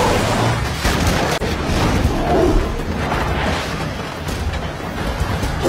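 Film action sound mix: heavy crashing and booming as a giant ape smashes through a city street, with orchestral score underneath.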